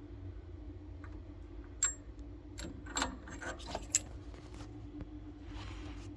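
A handful of light metallic clicks and clinks, mostly between two and four seconds in, from tools and parts being handled during a boiler gas valve change, over a faint low steady hum.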